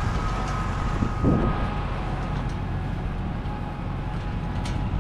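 A vehicle engine running steadily: a low hum with a faint steady whine above it.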